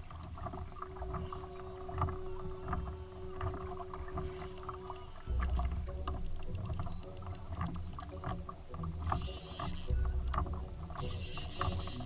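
Pedal kayak out on the water: water moving against the hull with scattered knocks and clicks over a low rumble. A steady hum runs for the first few seconds, and two bursts of hiss come near the end.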